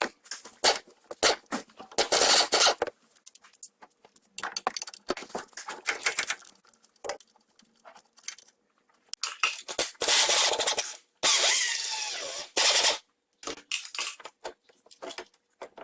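Metal tools clinking and rattling against the front suspension while the shock absorber's lower bolts are undone: a run of sharp clicks and knocks, with a few longer rattling bursts of about a second.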